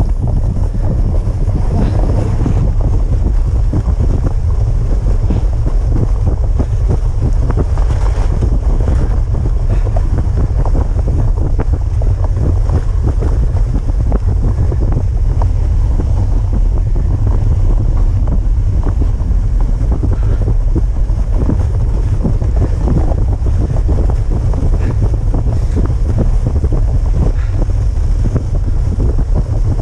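Wind buffeting the microphone of a camera moving at speed over a snow trail, a loud steady rumble, with many small irregular crackles from travel over packed snow.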